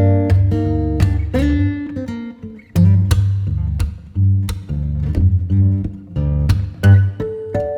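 Background music: acoustic guitar plucked and strummed over a steady bass.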